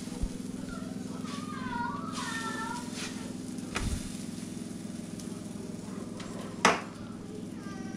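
A steady low hum under faint background voices, with a soft thump about four seconds in and a sharp knock near seven seconds.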